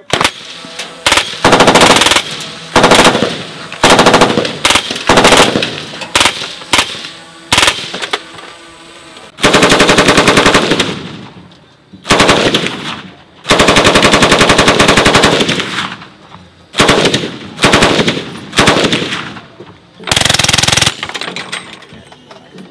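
Fully automatic gunfire from several guns, an Uzi-type submachine gun and a belt-fed machine gun among them: about a dozen short and long bursts, the longest two near the middle lasting about two seconds each, every burst dying away in echo.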